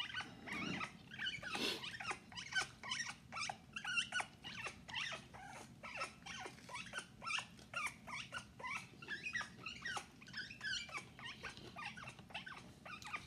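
African grey parrot chattering softly to itself: a continuous run of short clicks mixed with brief squeaky chirps.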